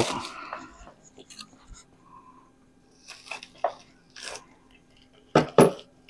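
Bubble wrap and plastic packing rustling and crackling in fits and starts as it is unwrapped from a gas pressure lantern, with two sharper crackles near the end.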